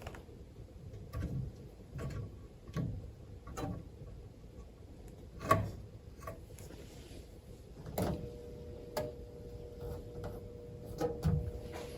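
Scattered knocks and clicks of tools and metal furnace parts being handled, the loudest about five and a half seconds in. About eight seconds in, a steady hum starts and carries on under the clicks.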